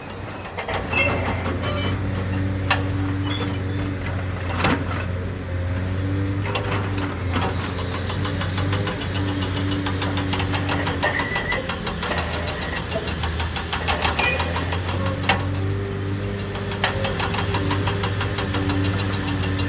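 A vehicle engine running steadily at idle, with a rapid, even knocking tick over its low hum.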